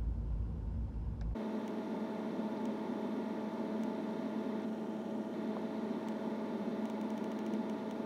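V10 TDI diesel engine idling: a steady hum with hiss. About a second and a half in, the deep low rumble drops out abruptly and only the higher hum and hiss remain.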